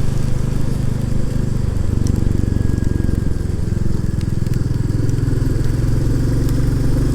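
Royal Enfield Classic 350's single-cylinder engine running steadily under way, its pitch shifting slightly a couple of times, with scattered ticks of rain striking.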